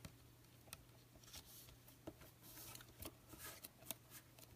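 Near silence with faint, scattered clicks and light rustles from baseball cards being handled on a table.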